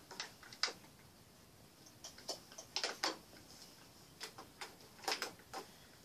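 Scattered light clicks and taps at uneven intervals, loudest in small clusters about three seconds and five seconds in.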